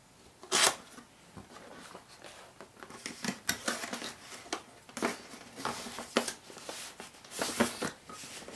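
Cardboard box being opened by hand, its flaps and the cardboard inside scraping and rustling. A single sharp snap or knock about half a second in is the loudest sound, and a run of short scraping, brushing strokes follows from about three seconds on.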